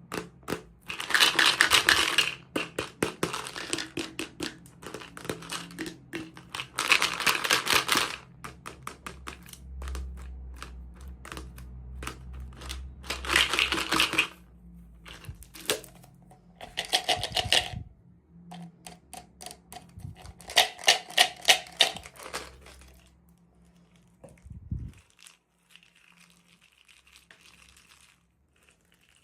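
Hands handling and opening plastic toy packaging: fast crinkling and clicking in about five bursts of a second or two each, with quieter rustling between them.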